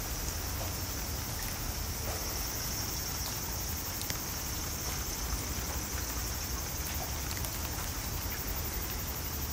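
Steady chorus of summer cicadas: an even, high hiss that does not let up, over a low rumble, with a few faint ticks scattered through it.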